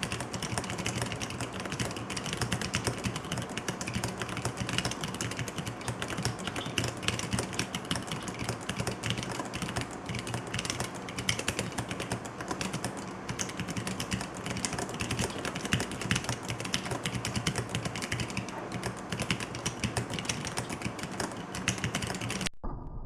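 Fast, continuous typing on a MiniF4 36-key split mechanical keyboard built as a bare PCB with switches and no case: a dense, rapid stream of key clicks that stops abruptly near the end.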